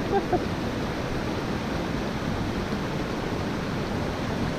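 River water flowing, a steady, even rushing noise.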